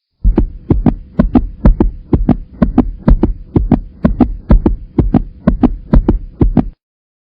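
A rhythmic beat of heavy double thumps, about two pairs a second, over a faint steady hum; it starts and stops abruptly.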